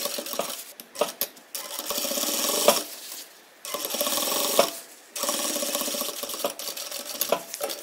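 Sewing machine stitching steadily, topstitching through the outer fabric beside a zipper. It runs in several stretches, stopping briefly three or four times as the fabric is repositioned.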